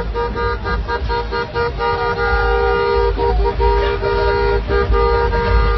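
Car horns honking almost continuously: long held blasts broken by short gaps, with more than one horn sounding together, over a low rumble.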